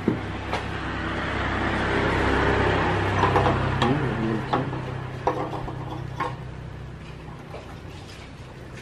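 A motor vehicle engine running with a low hum that grows louder over the first few seconds and then fades away, over scattered light clicks and knocks.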